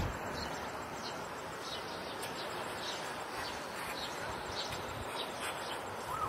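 Outdoor ambience: a steady hiss with short, high chirps or clicks scattered through it.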